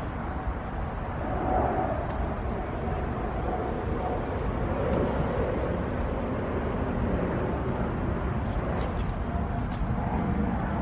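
Crickets chirping in a steady, high, regular rhythm, over a low background rumble.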